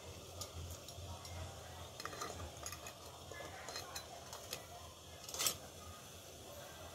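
Metal kitchen tongs clinking and scraping against a stainless steel steamer basket and round cake pan as the pan of steamed puto is gripped and lifted out, with a series of light clicks and one louder clank about five and a half seconds in.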